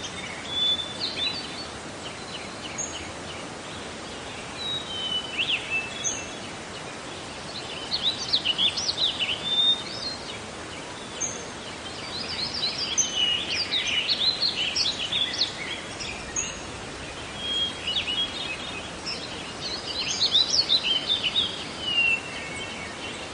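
Wild birds singing and chirping in repeated short high phrases over a steady background hiss, busiest around the middle.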